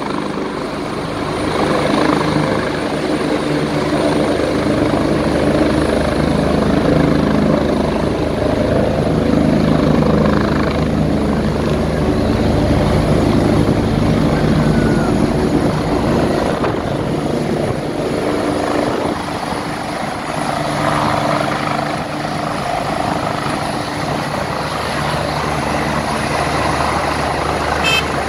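Eurocopter EC145 rescue helicopter taking off: its twin turbine engines and main rotor run steadily, with a thin, high turbine whine over the rotor noise, as it lifts off and rises into the air.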